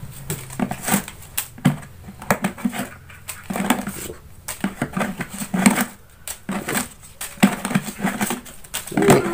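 Rolled paper banknotes rustling and crinkling as they are pulled one at a time out of a plastic barrel-shaped piggy bank and dropped onto a tiled floor. The sound is a run of irregular short crackles and light taps.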